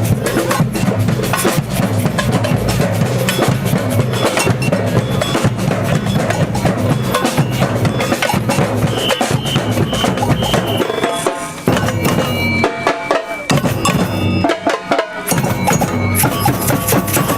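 Samba band drumming: fast, dense percussion with bass drums, snares and sharp wood-block-like strikes, thinning out briefly about twelve seconds in.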